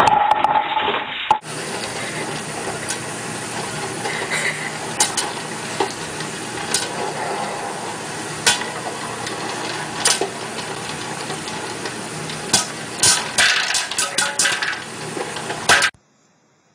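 Electric popcorn popper running: a steady sizzling hiss with sharp pops of kernels bursting, scattered at first and coming thick and fast near the end, then cut off suddenly.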